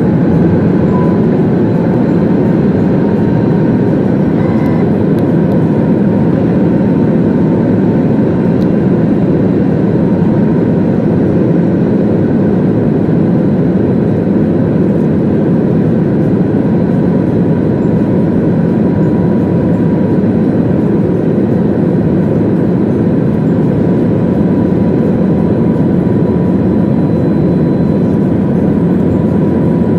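Passenger jet cabin noise heard by the window seat: the steady rush of engines and airflow, with a faint steady whine, as the airliner descends on approach to land.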